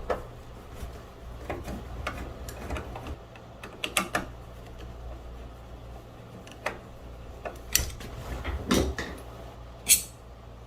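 Scattered small clicks and taps from handling the inside of an Onity hotel door lock while its deadbolt switch is taken off, including a quick cluster about four seconds in and the loudest click near the end. The switch is being removed because it was installed reversed, which made the lock flash red and green as if the deadbolt were engaged.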